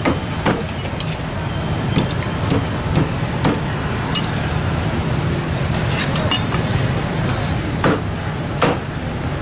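Meat cleaver chopping through a grilled bird on a round wooden chopping board: sharp, irregular chops, several close together in the first few seconds and a couple more near the end. A steady hum of street traffic runs underneath.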